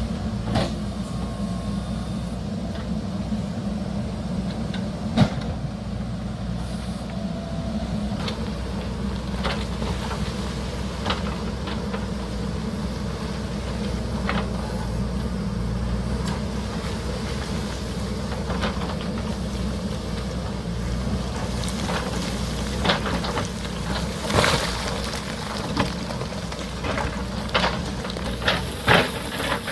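JCB backhoe loader's diesel engine running steadily under load, with sharp knocks of the bucket striking rock, coming more often near the end.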